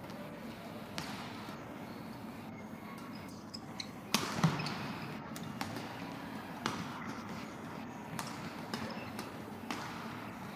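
Badminton singles rally: rackets strike the shuttlecock about once a second, each hit a sharp crack. The loudest pair of hits comes about four seconds in.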